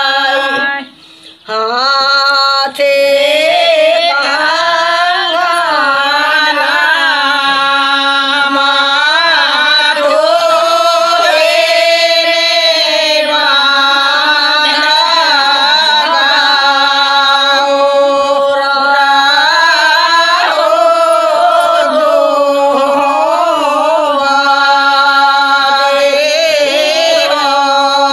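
Several women singing a Bagheli folk wedding song (vivah geet) together, the melody wavering and sliding over steadily held notes. The singing breaks off briefly about a second in, then carries on.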